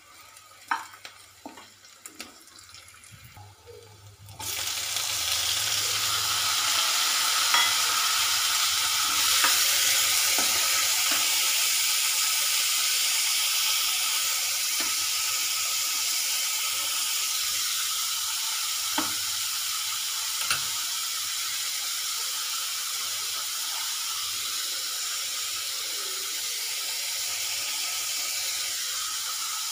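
Spatula clicking and scraping in a nonstick kadhai of frying onions, then about four seconds in a loud sizzle starts suddenly as chopped tomatoes go into the hot oil. The sizzle carries on and slowly eases off, with an occasional click of the spatula.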